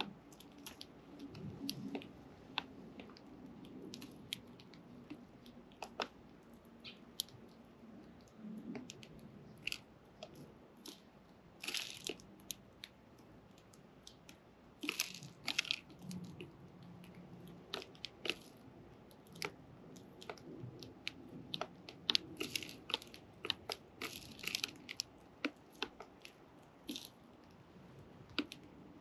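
Sparrow chicks pecking at food: scattered small clicks and crunchy taps at an irregular pace, bunching into quick runs around a dozen seconds in, again at about fifteen seconds, and over several seconds past the twenty-second mark, over a faint low hum.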